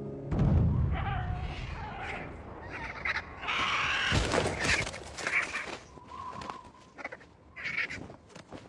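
A low rumble about half a second in, then vultures giving a string of harsh cries that grow sparser toward the end.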